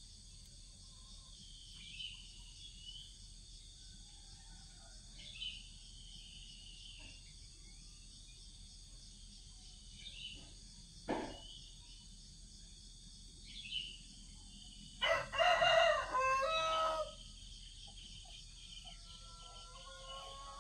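Background ambience with a steady high insect trill and scattered short bird chirps, a single knock about eleven seconds in, and a rooster crowing once for about two seconds from about fifteen seconds in, the loudest sound.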